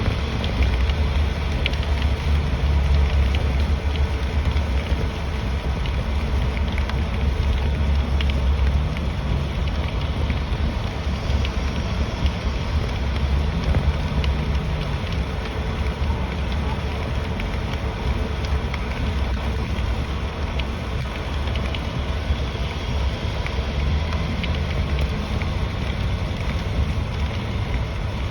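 Steady noise of a car driving in the rain: a deep, even road rumble with scattered light ticks of rain on the car.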